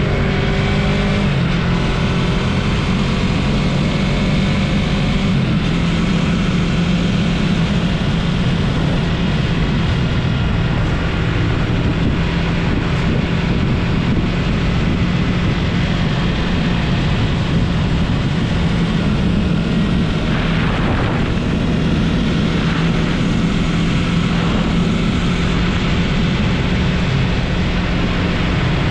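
Yamaha MT-03 motorcycle engine pulling steadily at cruising speed, heard from the rider's position under a constant rush of wind and road noise. The engine note rises briefly at the start as the bike accelerates, then holds steady.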